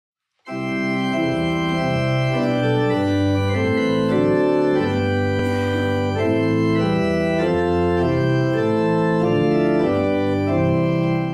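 Organ music: a slow succession of held chords, each changing every half second to a second, starting about half a second in.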